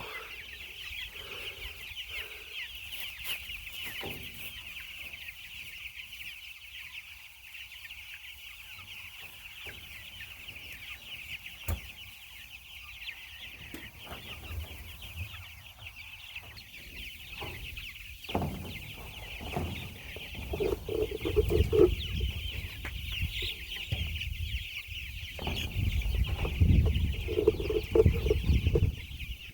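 A flock of meat chickens calling and clucking steadily, a dense, continuous chatter. Over the last third, louder low rustling and knocking noises come in over the birds.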